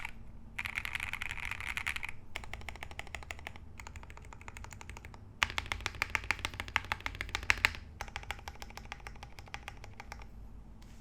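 Typing on a Corgi65 65% top-mount custom mechanical keyboard with lubed Alpaca linear switches, an aluminium plate and Geekark keycaps: quick runs of keystrokes broken by brief pauses, with a louder, faster run of typing about five and a half seconds in.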